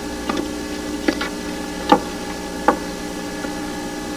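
A few light clicks and knocks, about five, of a hand setting garnish on a china plate. Under them runs a steady hum and hiss from the old VHS tape transfer.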